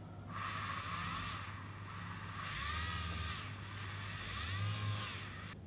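Handheld rotary tool with a small drill bit in its chuck, drilling a pilot hole in a plastic model part. The motor whirs with its pitch dipping and recovering, swells louder three times, and cuts off sharply near the end.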